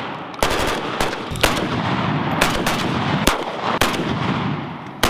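Rifle shots: about seven single shots at uneven intervals, each followed by a long echo.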